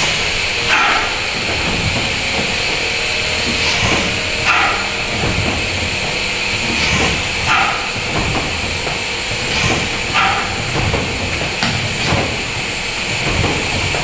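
Compressed air hissing into the 1904 Burmeister & Wain No. 1 diesel engine to turn it over for starting, pushing the piston down. The steady hiss is broken by a louder puff every one to three seconds as the engine turns slowly.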